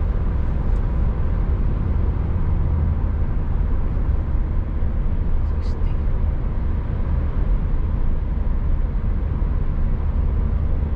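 Steady low engine and road rumble of a car heard from inside the cabin while driving along at speed, with a faint click about halfway through.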